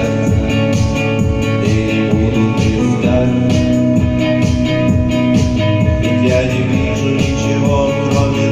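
A rock band playing, led by guitar, over a steady pulsing beat of about three beats a second.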